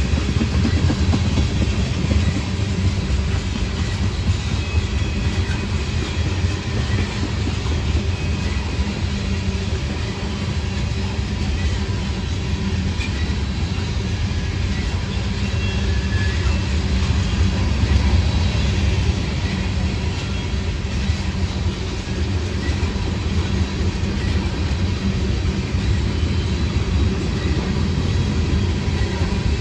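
Railroad tank cars of a freight train rolling past on steel rails: a steady, low rumble of wheels and trucks with a light clatter over the rails.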